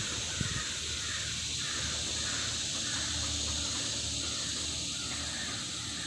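Steady, high-pitched chorus of cicadas buzzing, with crows cawing in the background.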